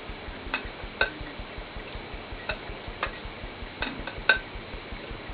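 Large hand-carved maple knitting hooks clicking and knocking lightly as chunky yarn stitches are worked off them: about seven scattered sharp clicks, the strongest a little past four seconds in.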